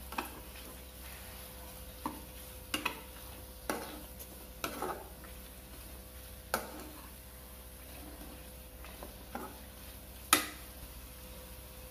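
A slotted metal spoon stirring and turning beef fry in a kadai, with irregular clinks and scrapes against the pan over a faint sizzle; the loudest knock comes about ten seconds in.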